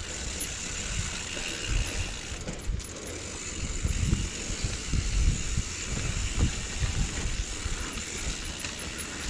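Mountain bike rolling down a rough dirt downhill trail: irregular low thumps and knocks from the wheels and suspension over the bumps, with rattling from the bike.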